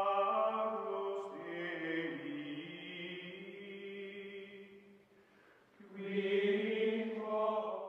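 Background music of chant-like voices holding long notes. It dips almost to silence about five seconds in and comes back about a second later.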